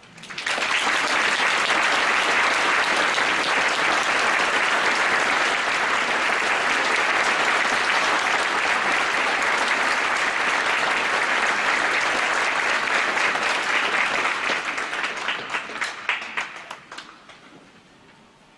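Concert audience applauding, dense and steady, then thinning into scattered single claps and dying away in the last few seconds.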